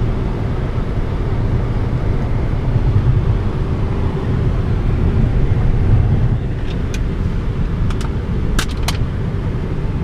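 Inside a Ford car cruising on a highway: a steady low rumble of tyre and engine noise. A few short sharp clicks come about three quarters of the way in.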